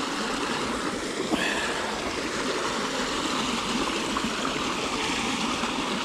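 Flowing stream water rushing steadily, with a brief high-pitched sound about a second in.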